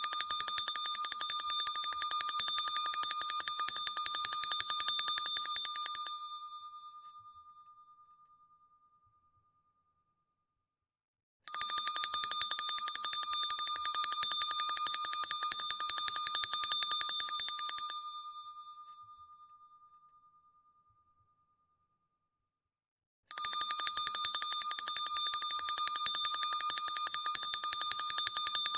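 Handbell shaken for rapid, continuous ringing in bouts of about six seconds, each fading out into silence. Two full bouts, with a third starting near the end.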